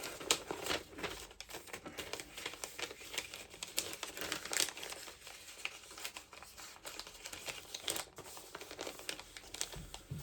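Paper and plastic packaging crinkling and rustling as it is handled, a continuous run of irregular crackles.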